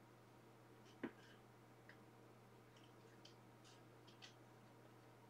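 Near silence with room hum, broken by a few faint, short clicks and ticks; the sharpest click comes about a second in.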